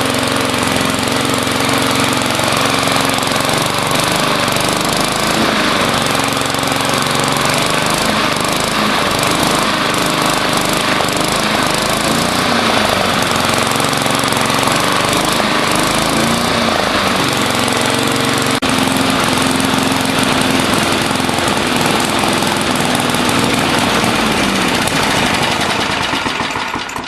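Walk-behind lawn mower engine running steadily, then shut off near the end and winding down.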